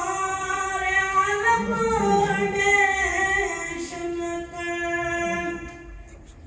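A child singing solo into a microphone, in long held notes that slide between pitches; the voice fades out near the end.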